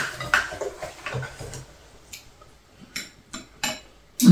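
Chopsticks and ceramic rice bowls knocking and clicking at a dinner table: scattered light clicks, then one louder, duller knock at the very end.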